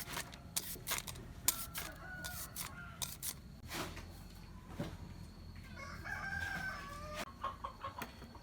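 A rooster crows once, a little over a second long, about six seconds in. Before it comes a run of sharp knocks and some short clucking.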